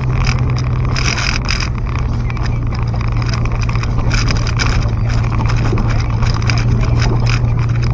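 Car driving on a rough, unpaved dirt road, heard from inside the cabin: a steady low drone of engine and tyres with frequent short clatters and rattles over the ruts and loose gravel.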